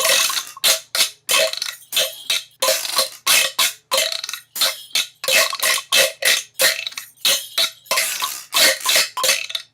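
A person's rapid, heavy breathing: short, noisy breaths in and out, about three a second, without a break.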